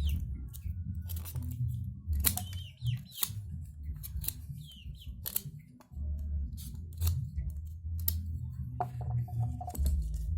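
Irregular sharp clicks and scrapes of handwork on bamboo over a low steady rumble, with a few short bird chirps.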